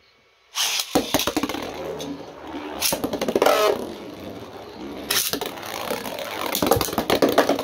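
3D-printed Beyblade spinning tops whirring and clashing in a plastic stadium: rapid clattering and scraping, with several loud sharp hits. The sound starts abruptly about half a second in.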